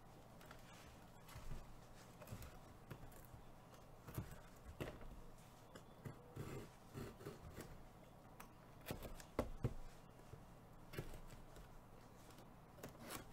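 Faint handling noise: scattered light clicks and knocks of things being moved about on a tabletop, over a low steady hum.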